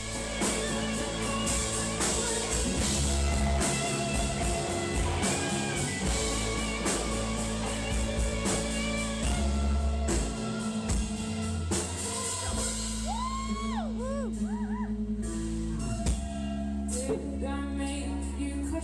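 Rock-style music with singing, guitar and drums.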